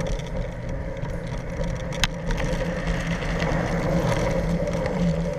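Skateboard wheels rolling on asphalt, a steady rumble with a constant hum, and one sharp click about two seconds in.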